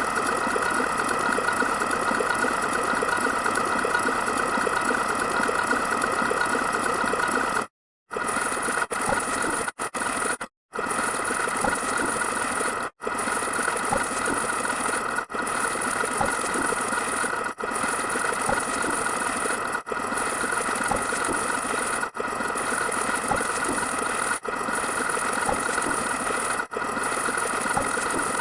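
A steady, dense mechanical rattling, repeated as a loop. It breaks off briefly about every two seconds, with two longer dropouts about eight and ten and a half seconds in.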